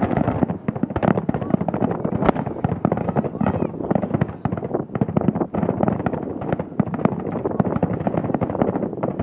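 Aerial fireworks bursting with a dense crackle of many sharp pops, and one loud bang a little over two seconds in.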